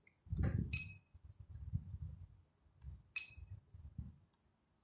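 70mai Pro dash cam beeping: three short, identical two-tone pings that fade quickly, spaced a couple of seconds apart as its buttons are pressed, with faint handling noise underneath.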